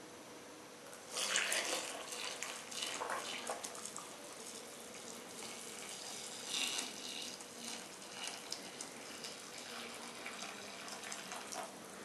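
Hot broth poured from a pot into a small stainless-steel pot of liver sausages, the liquid splashing steadily from about a second in.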